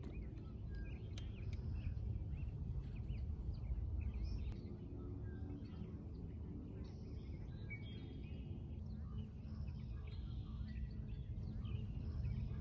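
Quiet outdoor ambience: faint, scattered bird chirps over a low, steady rumble.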